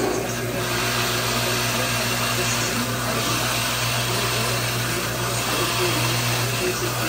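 Drill press running steadily as its bit is fed down into a bowling ball to bore a finger hole. The motor gives a steady low hum under an even cutting noise.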